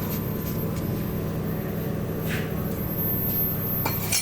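TIG welding: a steady low electrical buzz that holds level throughout, with a few faint ticks over it.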